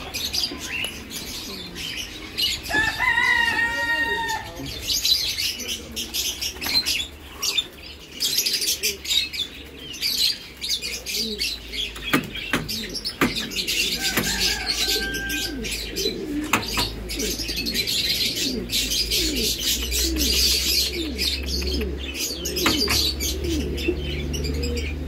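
A shop full of caged birds: small birds chirping and twittering high throughout, pigeons cooing low underneath, and wings flapping against the cages now and then. Two longer, louder calls stand out, about three seconds in and again around fourteen seconds.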